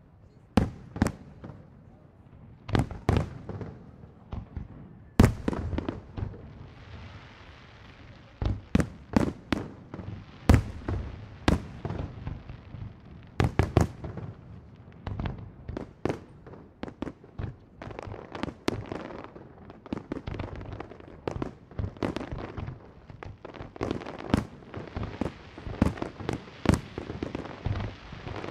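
Fireworks display: aerial shells bursting one after another in dozens of sharp bangs, sometimes several a second, with a steady hiss under the bangs from about six seconds in.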